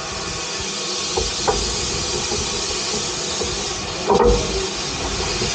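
Peckett industrial steam locomotive letting off steam in a steady loud hiss, with a few short metallic clanks, the loudest about four seconds in.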